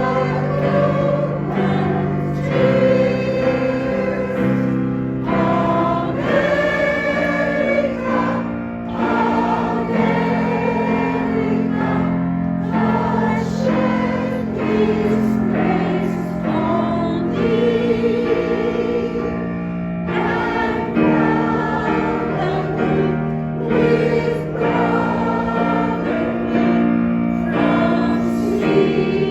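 Choir singing a song together, with long held notes.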